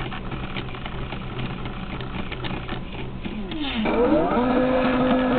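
Stepper motors of a CNC machine making a move: a low hum with light ticking, then near the end a whine that rises in pitch and levels off into a steady tone as an axis speeds up to a constant feed.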